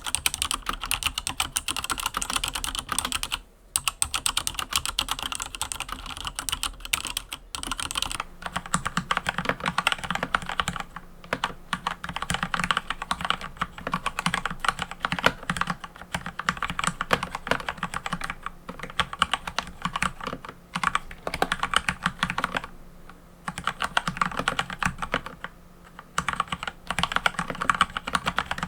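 Mechanical keyboard being typed on rapidly, a dense run of keystroke clicks with a few short pauses.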